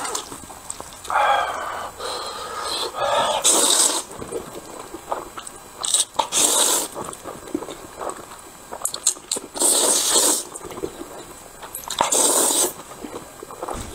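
A person slurping mouthfuls of Hubei hot dry noodles in several long, hissing slurps a few seconds apart, with chewing between.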